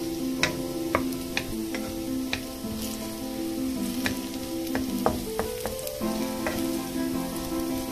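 Minced garlic sizzling in hot oil in a frying pan while a wooden spatula stirs it, with irregular sharp taps and scrapes of the spatula against the pan; the garlic is being sautéed toward golden brown. A soft background tune runs underneath.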